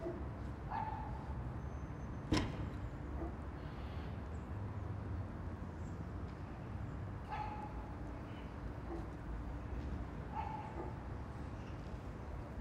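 A dog barking, single barks every few seconds, over a low steady background rumble. A sharp knock about two seconds in.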